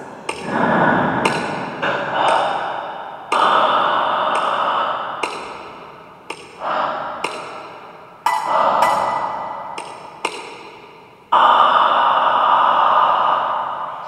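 Electronic soundtrack of sharp, irregular pings and clicks over swells of rushing noise. Three of the swells cut in suddenly, a few seconds in, about eight seconds in and near eleven seconds, and each slowly dies away.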